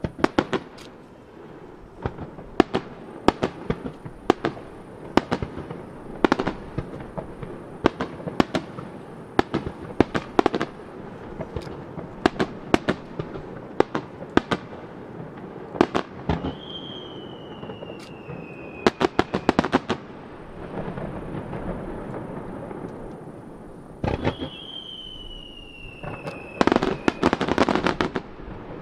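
Aerial firework shells bursting in a starmine sequence: a steady run of sharp bangs, roughly one or two a second. Two falling whistles come partway through, and a rapid flurry of bangs arrives near the end.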